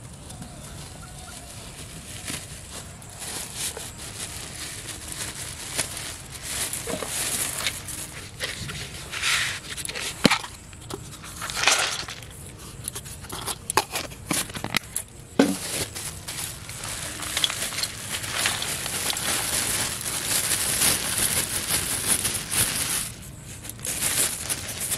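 Hands preparing fishing bait in a steel bowl: feed pellets and grain crushed under a plastic cup and rice mixed in, heard as a run of irregular rustling, crunching and scraping bursts, with a sharp knock about ten seconds in.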